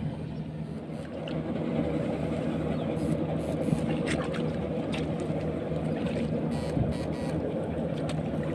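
A steady low mechanical hum, like a small motor running, under a constant rushing noise, with a few brief sharp clicks in the second half.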